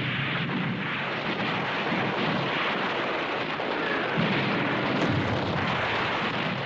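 Battle sounds: a continuous din of gunfire and artillery explosions, dense with closely packed shots and blasts without a pause.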